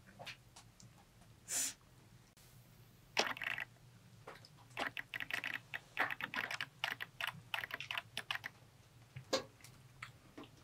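Irregular light clicks and taps of people eating a meal by hand, picking up dates, bread and food from a steel tray and handling tea glasses, with a brief rustle about a second and a half in.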